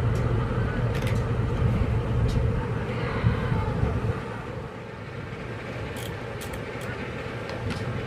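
Steady low engine rumble with outdoor background noise, dropping in level about four and a half seconds in, with a few sharp clicks.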